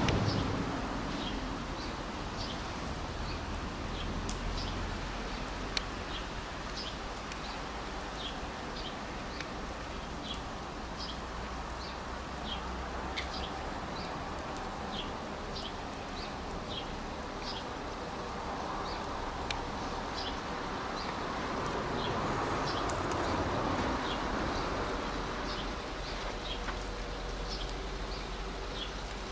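A small bird chirping over and over, short high calls a little more than once a second, over the low steady running of a Class 172 diesel multiple unit at the platform. The train noise swells for a few seconds about three-quarters of the way through.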